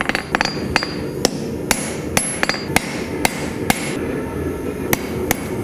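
Hand hammer striking a red-hot Damascus steel chef's knife blade on an anvil. It is a run of light, irregular tweaking blows, several a second, reshaping the blade profile. Some blows leave a brief high ring, and there is a short pause near the end. A steady low rumble runs underneath.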